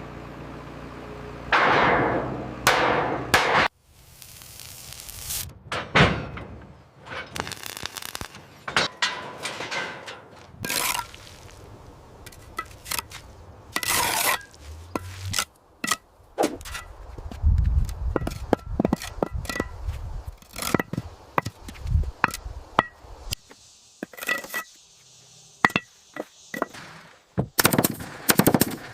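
Building work with hand tools: a string of sharp knocks and taps, short stretches of scraping and rubbing, and a few dull thuds, in short edited pieces.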